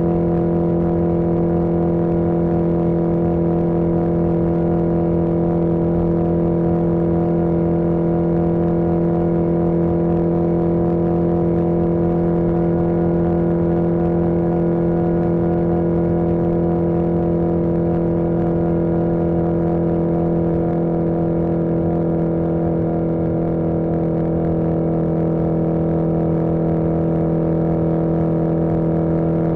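1981 Yamaha XJ650 Maxim's air-cooled inline-four engine running at a steady pitch, holding a constant cruising speed, over a low rush of wind.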